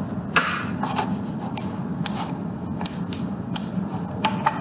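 Sharp, separate clicks at a computer, about eight in four and a half seconds with two close together near the end, over a steady low hum.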